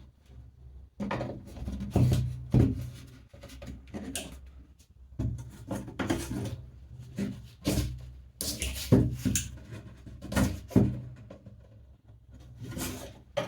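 Irregular knocks, taps and scrapes of cardboard and plastic 3D-printed brackets being handled and pushed into place, over a faint steady low hum.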